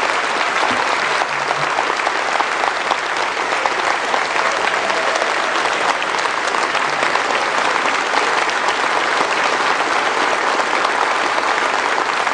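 A large audience applauding steadily: a dense, even patter of many hands clapping.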